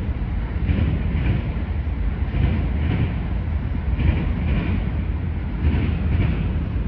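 BNSF freight train of autorack cars rolling past: a steady low rumble with the wheel noise swelling in pairs, about every second and a half to two seconds, as each car's trucks go by.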